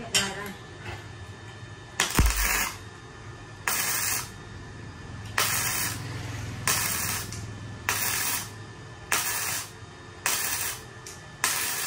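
Kobe MIG welder welding a stainless steel bar in short bursts of arc: about eight bursts, each under a second, roughly one every second and a half.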